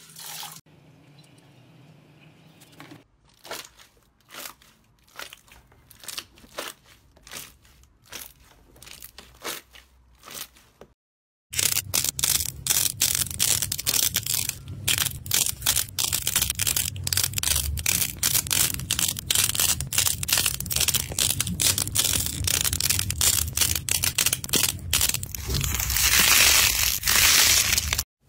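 A hand pressing and crushing a slab of pastel clay balls with a dried pink crust: loud, dense crunching and crackling that gets thicker and brighter near the end, then stops abruptly. Before it, a much quieter stretch of scattered soft clicks and squishes.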